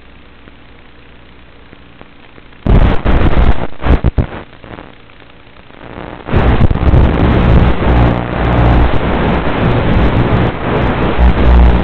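A QAV250 FPV racing quadcopter's motors hum faintly and steadily through its onboard audio. About three seconds in comes a sudden loud burst of crashing noise as the quad goes down into tall grass. After a short lull, a loud continuous rough rushing noise starts about six seconds in.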